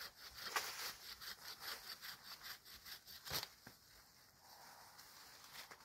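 Rhythmic scraping strokes, about three a second, ending about three and a half seconds in with a louder stroke.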